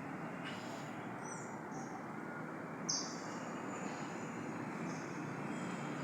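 Birds calling with short, high-pitched chirps, the loudest about three seconds in, over a steady low background rumble.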